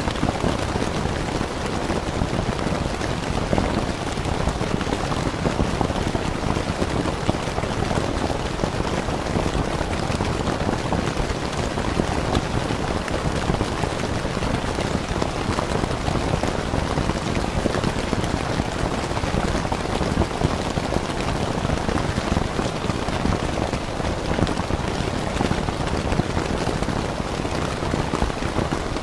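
Steady rain falling on a tent, a dense, even hiss of drops with no letup.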